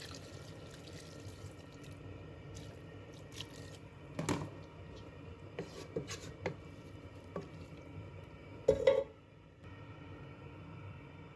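Water dripping and being poured into a cooking pot, with a few light clinks and taps of a utensil and a louder metallic clank about nine seconds in.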